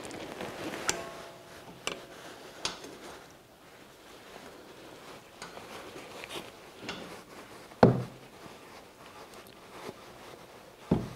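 Quiet clicks and rubbing of hands turning a new brake hose's metal fitting into a Ford Mondeo Mk3 brake caliper by hand, with two short dull knocks, about eight seconds in and near the end.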